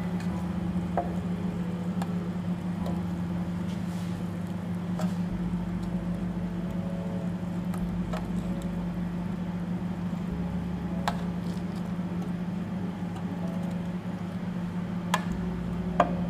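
A steel spoon clinking and scraping against a metal roasting pan as chicken drumsticks are turned over, with a few sharp clinks spread through and the loudest near the end, over a steady low hum.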